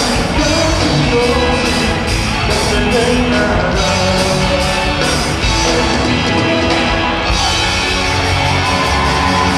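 Live pop-rock band playing loud, with drums, electric guitars and keyboards. A steady cymbal beat drops out about seven seconds in.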